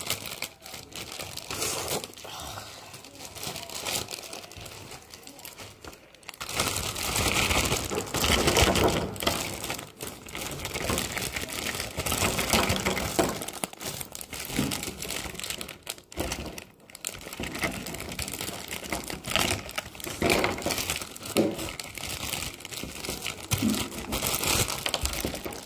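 Plastic packaging crinkling and rustling as a toy's parts are unwrapped, on and off throughout.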